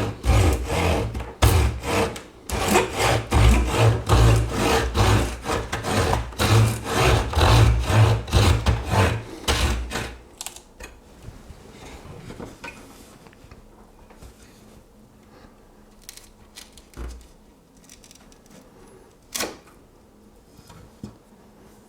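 Victorinox Swiss Army knife wood saw cutting a tree branch in quick, even back-and-forth strokes. The sawing stops about ten seconds in, leaving only a few faint handling knocks.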